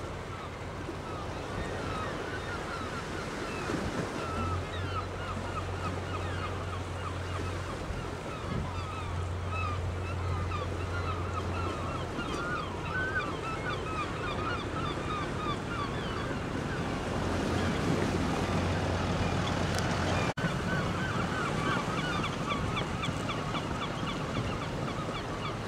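A flock of gulls calling over and over in short, quick cries, over a haze of wind and water noise. A boat engine's low, steady hum comes and goes underneath.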